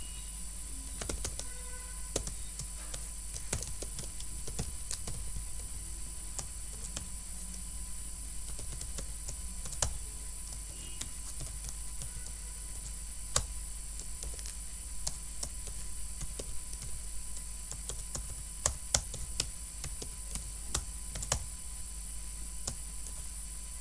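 Computer keyboard being typed on in irregular, unhurried keystrokes, a few of them sharper, over a steady background hum and hiss.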